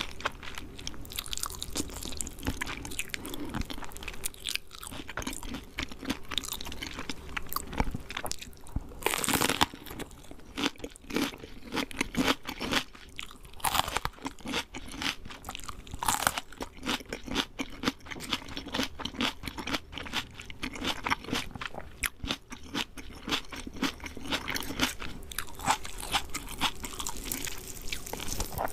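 Close-up eating of KFC fried chicken: crisp breading crunching under repeated bites and chewing, a dense run of crackles with a few sharper, louder bites.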